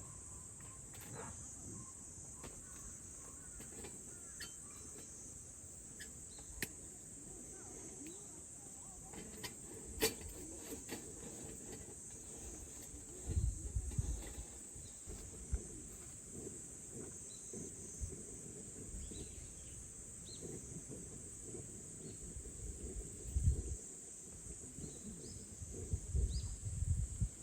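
Steady high chirring of crickets, with scattered faint clicks and a few soft low rumbles.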